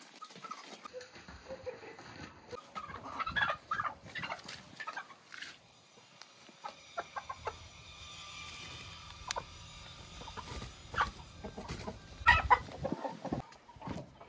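Domestic chickens, hens and roosters, clucking in short, scattered calls, with the loudest calls near the end.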